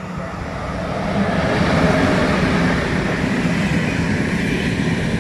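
Electric-locomotive-hauled passenger train passing: the rumble and rush of wheels on the rails grows louder over the first two seconds, then holds steady as the carriages go by.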